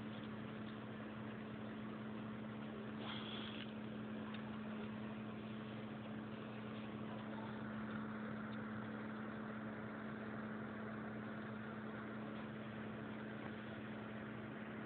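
Faint steady low hum with a background hiss, and a brief higher-pitched sound about three seconds in.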